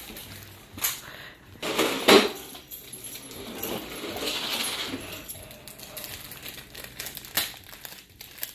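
Fingers parting and rubbing through hair right against the phone's microphone: irregular rustling and crackling with small clicks, loudest about two seconds in.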